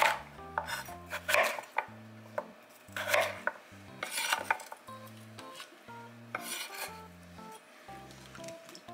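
Chef's knife cutting through a raw sweet potato on a bamboo cutting board: several crisp chopping strokes a second or two apart, each ending with the blade hitting the board. Soft background music with plucked notes runs underneath.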